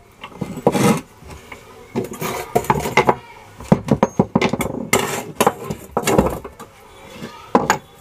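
Irregular metal clinks and knocks as a monoblock water pump's housing and the threaded rods of an impeller puller are handled and set down on a workbench.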